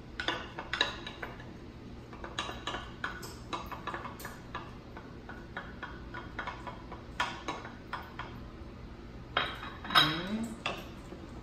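Wooden spoon tapping and scraping against a small glass bowl, knocking seasonings into a large glass mixing bowl: a string of light clicks and knocks. About ten seconds in comes a louder clatter of glass as the small bowl is set down on the counter.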